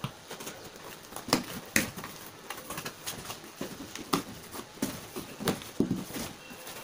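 A kitchen knife cutting the packing tape on a cardboard shipping box, a run of irregular scratches and clicks; near the end the cardboard flaps are pulled open.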